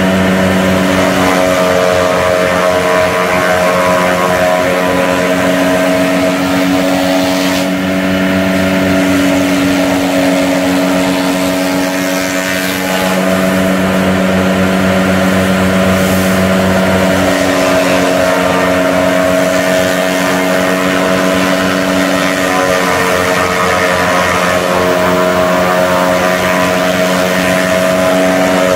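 John Deere 3350 tractor's diesel engine running steadily, driving a PTO forage chopper as green grass stalks are fed into it. The engine note is continuous and loud, with small shifts in pitch through the middle.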